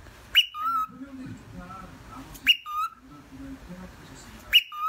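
Cockatiel whistling the same two-part call three times, about two seconds apart: a quick rising whistle, then a shorter, lower note.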